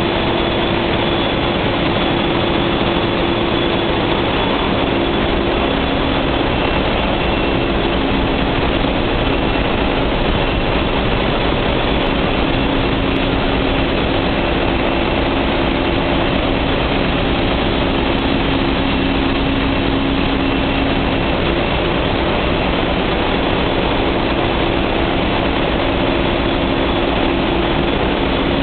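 Loud, unbroken din of a ship's diesel-electric engine room, with large diesel generator engines running at constant speed. Steady hums at a couple of fixed pitches sit over the dense mechanical noise, with no change in pace.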